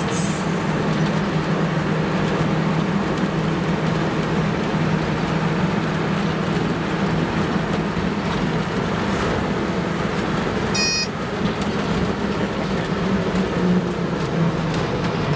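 Wooden-bodied bus driving, its engine and road noise a steady drone heard from inside the open-sided cabin. A brief high electronic beeping comes about eleven seconds in.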